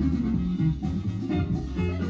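Instrumental background music led by guitar.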